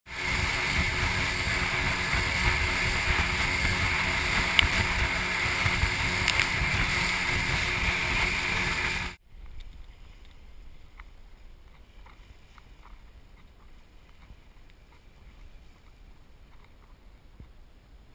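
A small boat's outboard motors running at speed, a steady loud noise of engine, rushing water and wind, which cuts off suddenly about halfway through. After it comes a quiet stretch of low water sounds around the boat as it sits on the sea with the motors off, with a few faint ticks.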